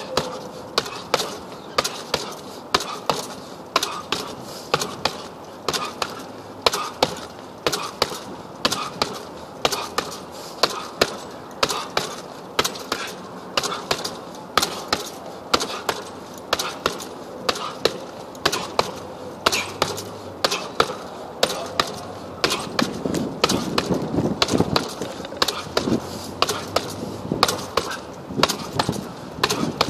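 Fists punching a hanging heavy bag: a continuous run of sharp thuds, about two a second.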